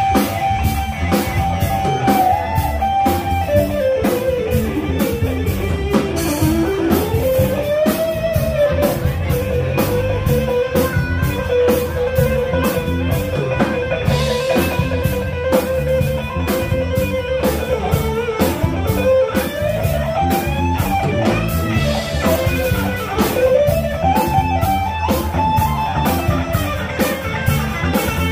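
Live rock band playing: an electric guitar solo of long held notes that bend and slide in pitch, over a steady drum beat.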